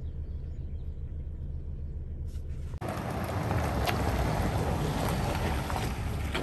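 Steady low wind rumble on the microphone. About three seconds in, a cut brings a louder rushing noise with a few sharp clicks as a Ford Bronco drives by on wet pavement.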